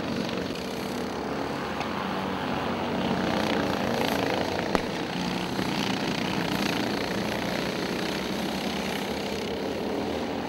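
Racing go-karts' two-stroke engines buzzing as the karts go through a corner, several engines heard at once with their pitches shifting. One sharp click sounds just before halfway.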